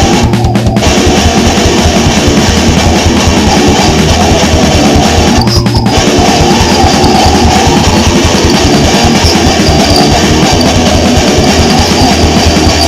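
Heavy metal music with distorted electric guitar and fast drums, dropping out briefly about half a second in and again about six seconds in.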